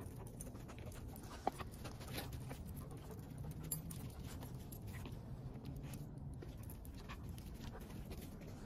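Footsteps crunching on packed snow, with a dog panting close by. There is a sharp click about a second and a half in.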